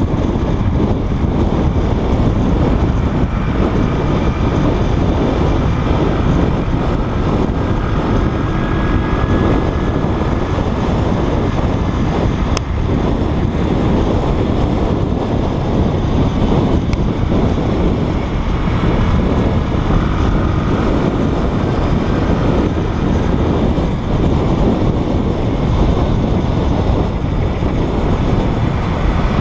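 Steady wind rush on a motorbike rider's helmet-camera microphone, mixed with the running motorbike and the surrounding traffic.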